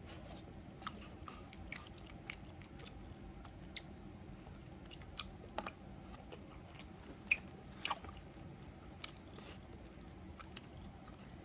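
A person chewing food close to the microphone, with scattered small mouth clicks and smacks and a couple of sharper clicks a little past halfway, over a faint steady room hum.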